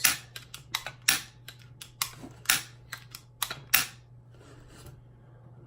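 Irregular sharp clicks and clacks from handling an Empire Sniper pump paintball marker, about a dozen in the first four seconds, then quieter handling.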